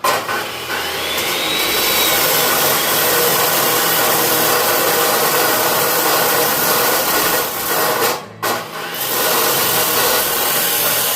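Electric power tool running loud and steady, starting suddenly, cutting out for a moment about eight seconds in and starting again.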